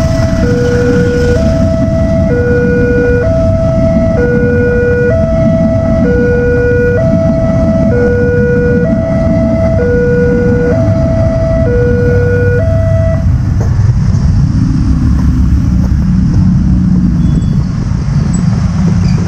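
Railway level-crossing warning alarm, an electronic two-tone signal alternating a higher and a lower note about a second each. Under it runs the loud, steady rumble of a passenger train passing on the rails. The alarm cuts off about two-thirds of the way through, and the low rumble continues as motorcycle engines pull away across the crossing.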